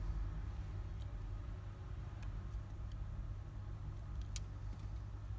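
A few faint, sharp clicks, the loudest about four seconds in, over a steady low hum.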